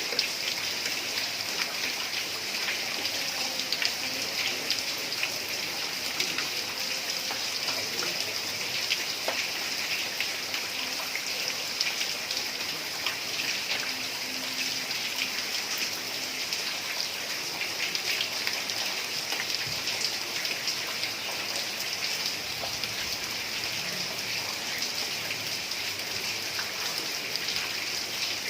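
Heavy rain falling steadily on roof tiles, a dense, even patter of drops.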